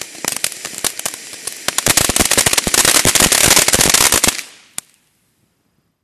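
"Fiery frog" ground fountain firework spraying sparks: a hiss full of popping crackles that builds about two seconds in to a loud, dense crackling finale, then dies away near the end with one last pop.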